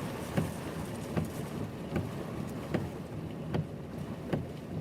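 Heavy rain pouring down as a steady hiss, with a regular knock a little more than once a second.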